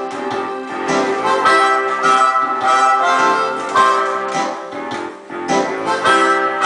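Blues music led by a harmonica, with chords held and changed in a steady rhythm.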